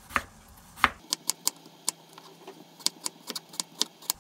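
Ceramic knife slicing a peeled potato on a wooden cutting board: two heavier cuts, then a string of about a dozen sharp taps as the blade goes through and strikes the board.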